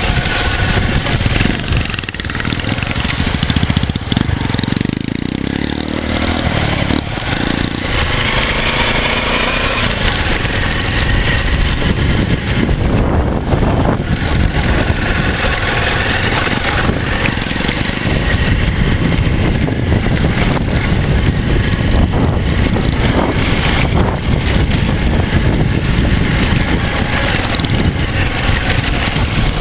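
Motorcycle engine running while riding, with steady wind noise on the microphone; the engine pitch shifts a few seconds in.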